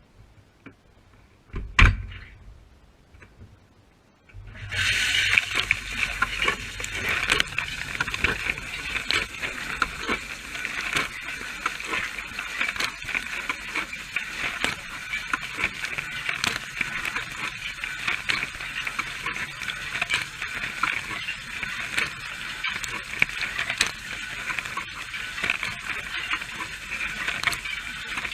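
Dishwasher wash cycle heard from inside the machine: after a quiet start with a single sharp knock about two seconds in, water spray starts at about four and a half seconds and keeps going as a dense, hissing patter of water striking the camera and dishes.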